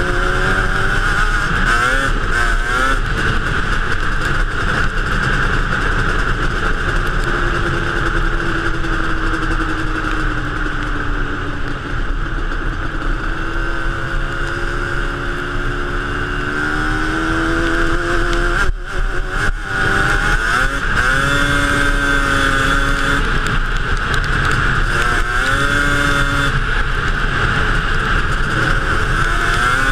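Yamaha Banshee ATV's two-stroke twin-cylinder engine, on Toomey T5 expansion-chamber pipes, running under load as it is ridden. Its pitch climbs slowly and rises and falls with quick throttle blips, and it drops out briefly about two-thirds of the way in as the throttle is chopped.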